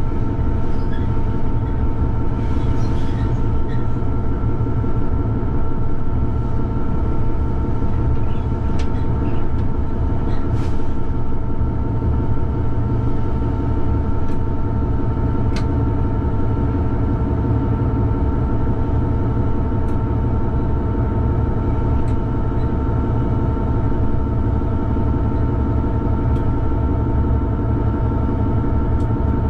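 Class 66 diesel-electric freight locomotive heard from inside the cab while running, its two-stroke V12 engine giving a steady low rumble under a constant high whine, with a few scattered sharp clicks.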